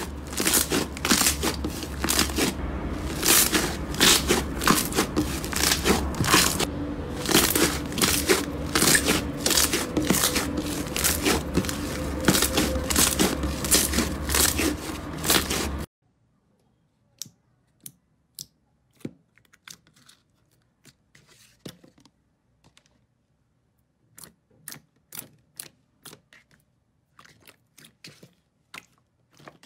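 Thick pink slime being pressed, pulled and torn by hand: dense crackling and tearing over a low steady hum. About halfway through it drops suddenly to faint, scattered sticky pops and clicks as the slime is stretched.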